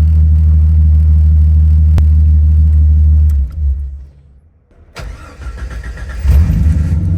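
1988 Jeep XJ engine idling, then shut off about three seconds in; after a short silence the starter cranks it and it catches about six seconds in and settles back to a steady idle. This is one of the owner's repeated off-and-on tests of a weak start-up.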